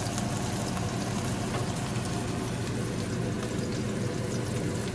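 Raw beef burger patties frying in hot oil in a frying pan: a steady sizzle with faint crackles, the meat freshly laid in and still raw on top.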